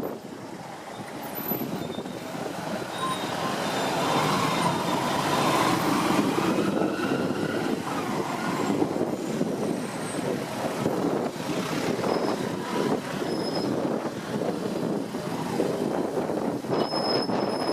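Road vehicle noise: engine and tyre rumble, getting louder over the first few seconds and then holding steady, with a thin high whine near the end.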